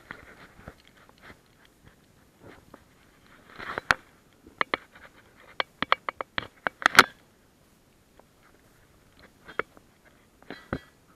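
Irregular close clicks, scrapes and crunches from a camera worn on a German Shepherd as the dog moves, the camera knocking and rubbing against its fur and harness. There is a dense run of sharp clicks about four to seven seconds in, and only a few after that.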